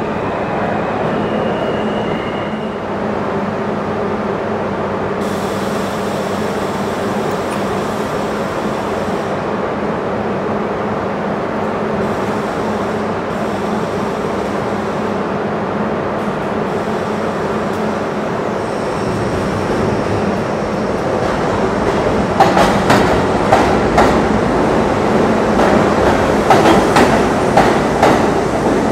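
A subway train stands at the platform with a steady hum from its equipment. About 22 seconds in it starts to pull out, getting louder, its wheels clacking over the rail joints.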